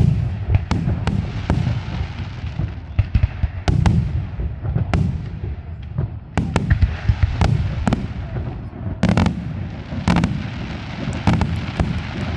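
Aerial fireworks display: a rapid, irregular series of loud bangs from bursting shells over a continuous low rumble, with hissing and crackling between the reports.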